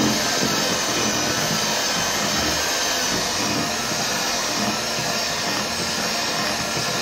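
Electric hand mixer running steadily at a constant speed, its beaters churning dry flour and cocoa into thick chocolate cake batter.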